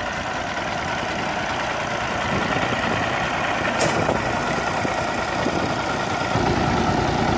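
Massey Ferguson 135 tractor engine running steadily, driving a hammer mill that is milling dried Rhodes grass.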